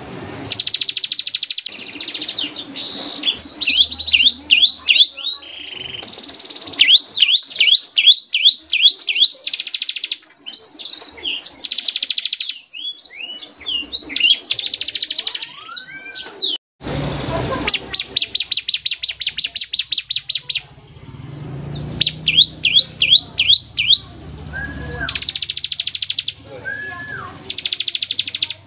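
Bar-winged prinia singing in fast bursts of high, rapidly repeated notes, rattling trills mixed with short sweeping whistles, one burst after another, with a brief cut and low thump about halfway through.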